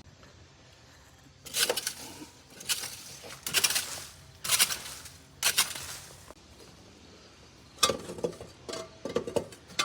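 Rake scraping through debris and loose dirt on the ground, in about ten separate strokes, with a pause of about two seconds after the first several.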